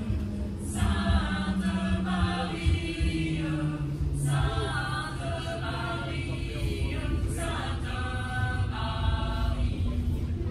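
Choir singing in short phrases over the steady low rumble of a moving tram.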